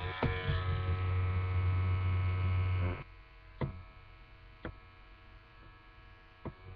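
Wahl 5 Star Detailer trimmer's magnetic motor running with a steady electric buzz. The buzz drops much lower after about three seconds, and a few light clicks follow.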